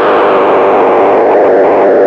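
Electronic tone generator built on a К176ЛА7 (CD4011) NAND-gate chip, giving a dense, noisy buzz at steady loudness, its sound run through software effects.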